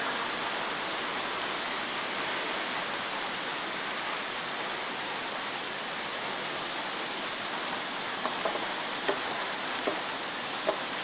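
Heavy rain falling steadily in a thunderstorm, with a few sharp taps in the last few seconds.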